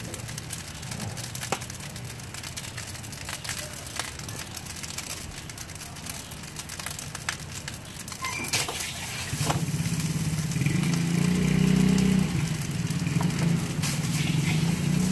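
A metal spatula scraping and clacking against a wok as fried rice is stir-fried. From about nine seconds in, a vehicle engine hums steadily alongside and becomes the louder sound.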